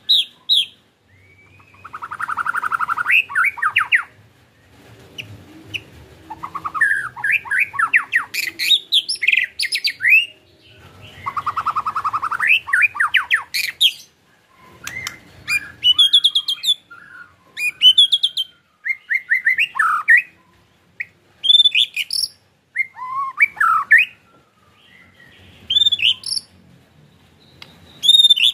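White-rumped shama (murai batu) singing: two long, fast rattling trills (ketrekan), then shorter clear whistled notes and sweeping phrases.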